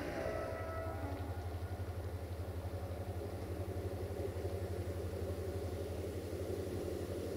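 An engine idling with a steady, evenly pulsing low throb.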